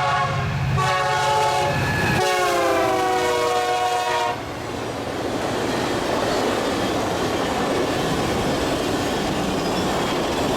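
Union Pacific executive train's locomotive horn sounding in three blasts, the last one lower in pitch as the locomotive passes, ending about four seconds in. Then the train rolling by with a steady rush of wheel and rail noise.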